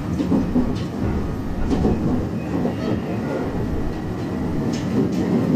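Electric commuter train running along the line, heard from inside the passenger car: a steady rumble of wheels and running gear on the rails.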